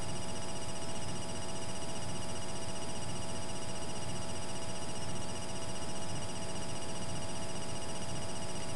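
Steady hiss with a constant electrical buzz and high whine, unchanging throughout.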